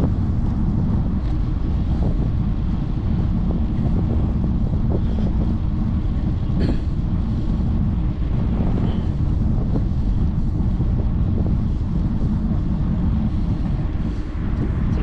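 Steady wind rumble buffeting a GoPro's microphone at riding speed, with a few faint clicks, the clearest a little before halfway.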